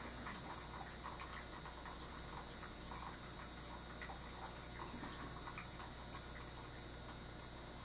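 Quiet room tone with a steady electrical hum and hiss, under faint, irregular little ticks and scrapes of a paintbrush working oil paint on a painting board.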